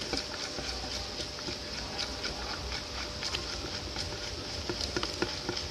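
A stirrer working clear glue in a container just after slime activator has been added, making many small irregular clicks and taps as the mixture sets into slime.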